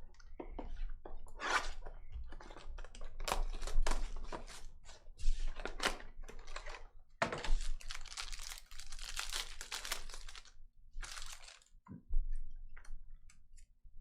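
Trading card packs being handled and torn open, with cards shuffled between the hands: a string of sharp clicks and crinkles, then a longer stretch of wrapper rustling about seven seconds in.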